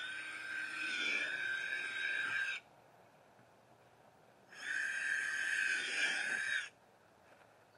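Cordless drill boring 5/16-inch holes into the side of a plastic olive barrel. The motor whine runs twice, each time for about two seconds, starting and stopping abruptly.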